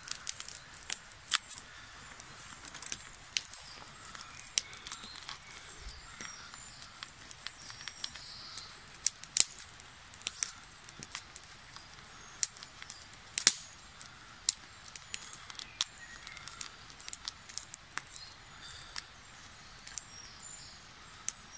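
Knife splitting a blackberry bramble stem lengthwise down the middle: irregular small clicks and cracks as the woody stem parts, a few of them sharper and louder.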